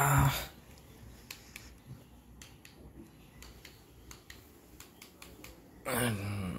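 Faint, irregular plastic clicks of buttons being pressed on a handheld remote control, about a dozen over several seconds.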